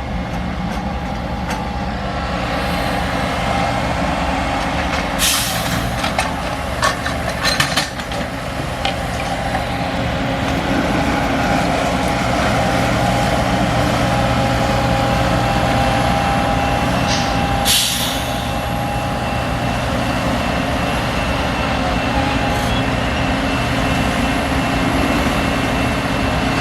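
Engines of track-maintenance machinery running steadily during railroad tie replacement, with two short bursts of hissing, one about five seconds in and one past the middle, and a few sharp clicks between.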